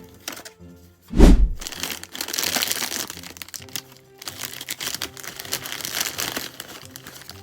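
A snack packet crinkling as it is handled and opened, over background music, with one loud thump about a second in.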